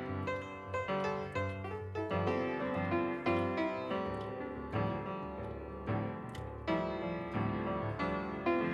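Background music: a piano melody with a steady beat.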